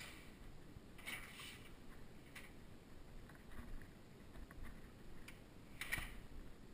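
Quiet household handling sounds: a door latch and door opening about a second in, soft footsteps, and a sharper knock near the end.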